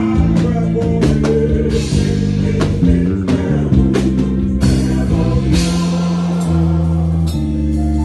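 A live band playing with singing: held chords and a moving bass line over steady drum hits.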